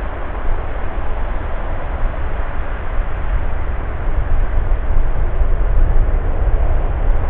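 Airbus A340-600's four Rolls-Royce Trent 500 turbofan engines at high power, a loud, steady jet noise with a deep rumble as the aircraft moves along the runway with its nose raised.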